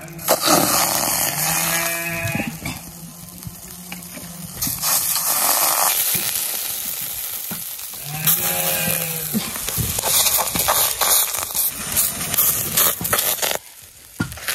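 Finger millet batter sizzling as it is poured into a hot iron wok over a wood fire, a steady loud hiss that starts about half a second in. A cow moos twice in the background, once near the start and once about halfway through.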